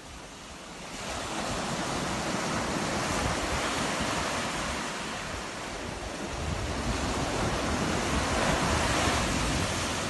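Sea surf breaking and washing up a sandy beach: a steady rush of water that swells about a second in, eases a little midway, and swells again in the later seconds.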